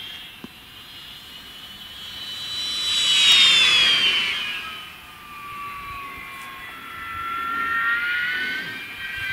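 Electric RC glider (Valenta Cappuccino) flying past with a whining, whistling tone. The tone swells and drops in pitch as the model passes close about three seconds in, fades, then builds again near the end as it comes round.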